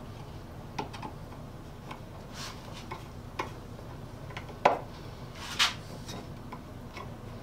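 Irregular light clicks and taps of small hand tools and a metal tin handled on a wooden workbench, with two sharper knocks about two-thirds of the way through.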